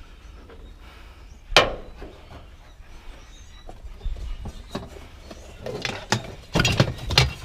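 Scrap being handled and set down: one sharp clank about a second and a half in, then scattered knocks and a burst of clattering near the end.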